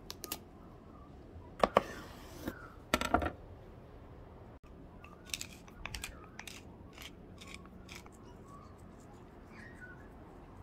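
Handling and cutting an eggplant on a wooden chopping board: a few sharp knocks and snaps, loudest about 2 and 3 seconds in. Then a wooden pepper mill grinds in a string of short crackles about two a second.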